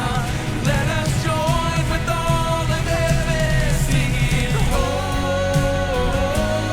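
Worship band playing a song with voices singing a melody over full band accompaniment: drums, bass and guitars at a steady, loud level.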